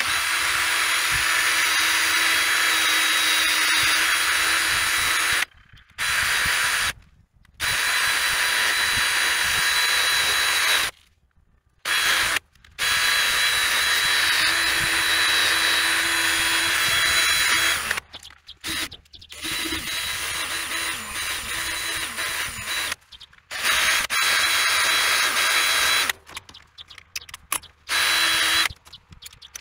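Cordless drill spinning a cleaning attachment against the metal mounting face of a backhoe's engine thermostat housing, scrubbing off leftover gasket glue. It runs in long bursts with short pauses between them.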